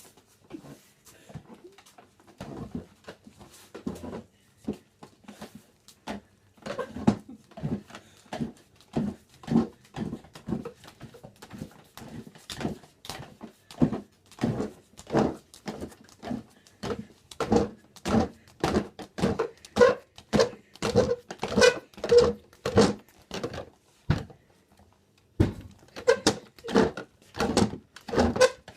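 Chair legs scraped across the floor in a run of short, pitched scrapes, sparse at first and then in quick, regular succession, with a brief pause about three-quarters through before they start again.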